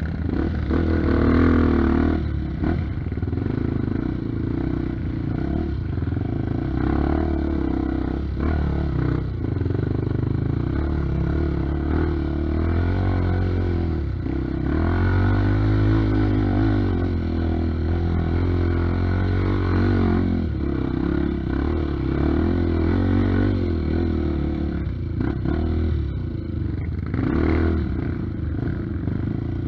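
Honda XR 250 Tornado trail bike, enlarged to 300 cc, its single-cylinder four-stroke engine pulling at low revs up a rough trail, the revs rising and falling with the throttle. Clattering and knocks come from the bike over the rutted ground.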